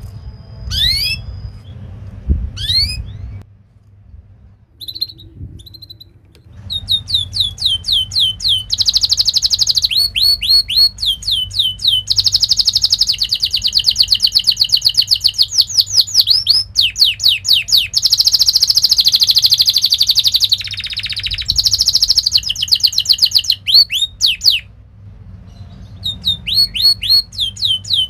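Domestic canary singing: phrases of quick, high, downward-swept chirps that run into long, fast, rolling trills. The song breaks off briefly a few seconds in and again near the end.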